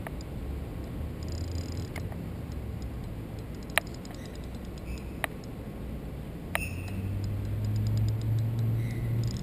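Spinning reel being worked while playing a hooked carp: a low steady whirring hum that grows louder from about two-thirds of the way in, with a few sharp clicks and faint ticks from the reel and rod handling.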